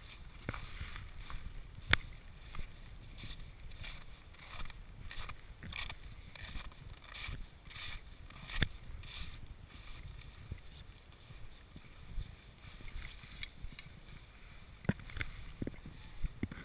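Booted footsteps, crampons per the uploader's tags, crunching in snow at a steady walking pace, over a low rumble of strong wind buffeting the microphone. A few sharper clicks stand out, about two seconds in, past the middle and near the end.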